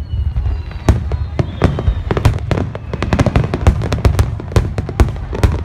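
Fireworks finale: aerial shells bursting in rapid succession, several sharp bangs a second over a constant deep rumble.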